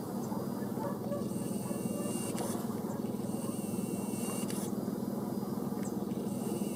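Car driving slowly, a steady hum of engine and road noise heard from inside the cabin.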